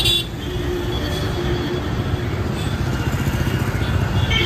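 A vehicle travelling on the road: a steady low rumble of engine and road noise, with brief high-pitched tones at the start and again near the end.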